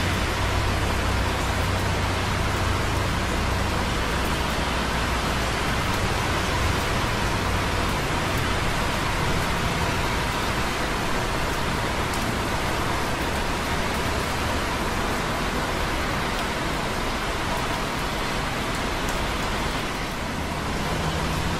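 Light rain with drops pattering on concrete close by, over the steady hiss and low rumble of busy traffic on wet roads. The traffic rumble eases in the middle and builds again near the end.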